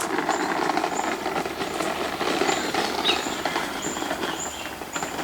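Continuous crunching and crackling of movement along a dry bush track, with a short high chirp repeated every half second or so above it.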